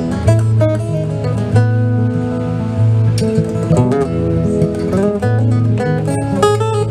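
Acoustic guitars playing an instrumental intro together: strummed chords with picked single notes on top over a recurring low note line.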